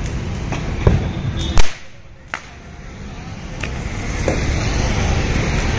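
Firecrackers in a burning Ravan effigy going off: scattered sharp cracks and pops, with one loud bang about a second and a half in, over a steady rumble of street traffic.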